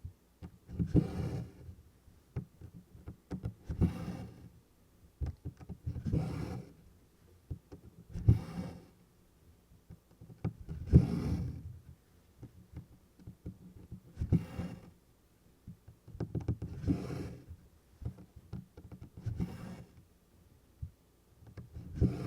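Cotton embroidery floss being drawn through 24-count Congress cloth, stitch after stitch: a close rubbing swish about every two to three seconds, with faint small clicks of the needle between pulls.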